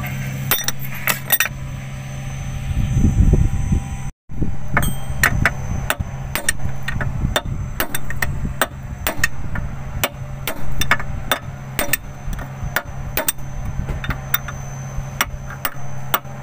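Irregular sharp metallic clicks and knocks of hand tools on a motor grader's circle rotation gear housing, several a second, over a steady low hum.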